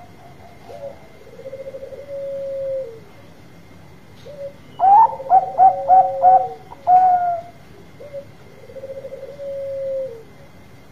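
Zebra dove (perkutut) cooing: soft, purring, trilled coos, then about halfway through a louder run of five quick staccato coos ending in a longer note, and another purring coo near the end. A faint steady high whine runs underneath.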